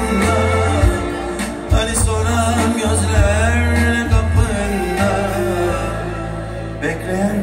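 Live band playing Turkish gazino music: a male singer holds wavering, ornamented notes over keyboard, drum kit and hand drums, with a heavy bass line.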